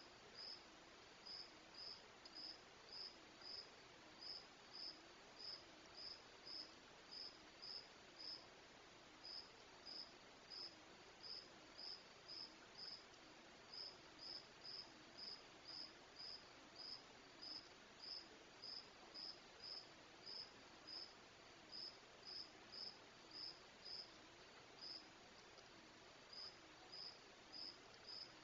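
A cricket chirping steadily, about two to three high-pitched chirps a second, with a faint low tone wavering up and down underneath.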